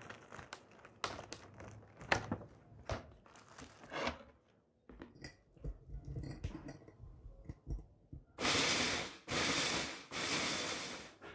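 Hands handling a clear plastic clamshell snack box, giving sharp plastic clicks and crinkles, then softer knocks as a glass clamp-lid jar is handled. Near the end come three loud rustling bursts, each just under a second, in quick succession.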